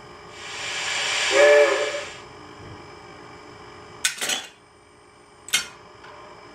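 Model steam locomotive's sound: a hiss of steam that swells and fades over about two seconds, with a short whistle toot at its loudest. Later come a few sharp clacks, a quick pair about four seconds in and a single one near the end.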